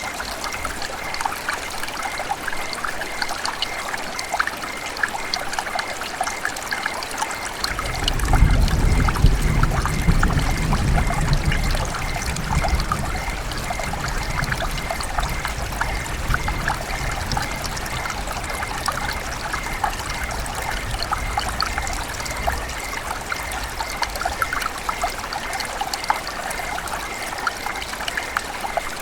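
River water running and gurgling in a steady babble. About eight seconds in, a low rumble swells up under it, is loudest for a few seconds, and fades away by about twenty seconds in.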